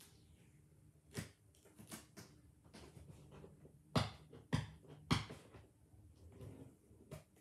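Cardboard toy box being handled and opened: scattered clicks and rustles of packaging, with three sharp knocks close together about four to five seconds in.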